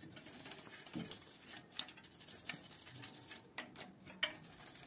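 Toothbrush scrubbing dust off an electric bike's front wheel hub: faint, irregular scratching strokes with a few light clicks.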